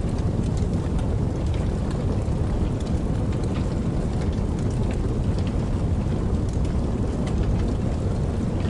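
Campfire crackling with frequent small pops over the steady rush of a babbling creek.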